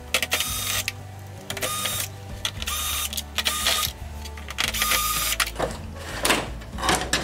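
Cordless drill-driver backing out the screws of a plastic LED TV back cover: several short bursts of motor whirring with a whine, about a second apart. Near the end come sharp clicks and knocks as the plastic cover is lifted off.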